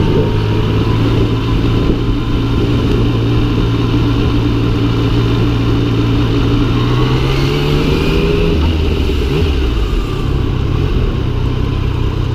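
Yamaha MT-09's three-cylinder engine running at low revs while riding in slow traffic. The revs rise gently, fall away sharply about eight and a half seconds in, and pick up again a moment later.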